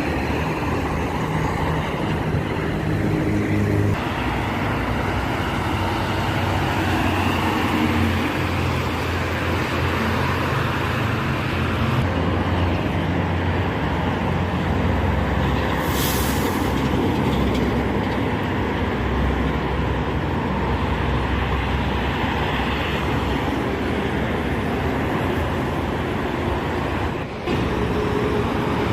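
Steady traffic noise of buses and trucks passing at speed on a toll road: engine rumble and tyre noise, with a short high hiss about sixteen seconds in.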